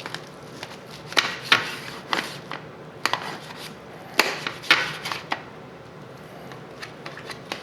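Knife cutting through a rack of smoked pork ribs: a series of sharp clicks and scrapes, in two clusters about a second in and again about four to five seconds in.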